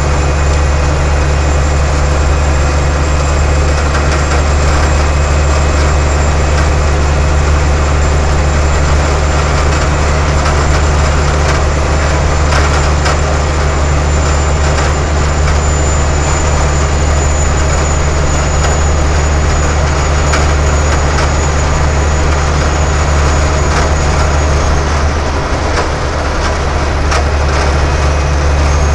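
Heavy truck's engine droning steadily with road noise, heard from inside the cab while cruising at highway speed. Near the end the engine note dips briefly, then settles again.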